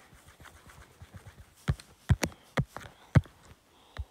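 About six sharp, irregular taps on a tablet's touchscreen, starting a little over a second and a half in.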